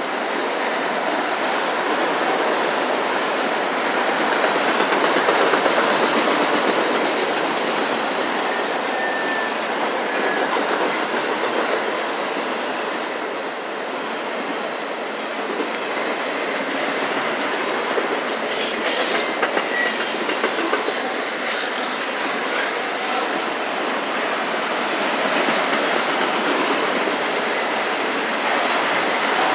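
Autorack freight cars rolling past: a steady rumble of steel wheels on rail, with short high-pitched wheel squeals, the sharpest about two-thirds of the way through.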